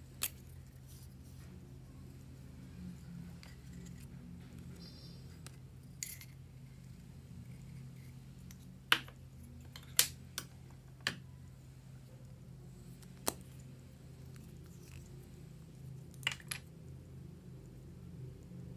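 Scattered sharp taps and clicks of small hard objects being handled and set down, about nine in all and loudest around the middle, over a steady low hum.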